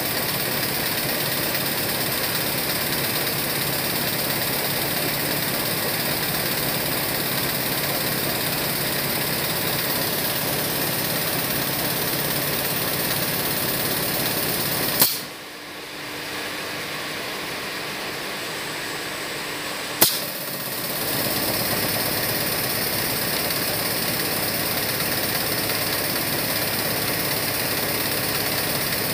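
DEBEM Boxer IB-7 air-operated double-diaphragm pump running steadily. About halfway through, a sharp click is followed by a quieter stretch of about five seconds. A second click brings the running back up to full level.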